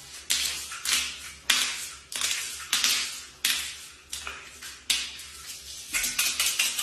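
Hand-held pepper grinder being twisted, crushing peppercorns in a run of short gritty grinding strokes, roughly one every half second.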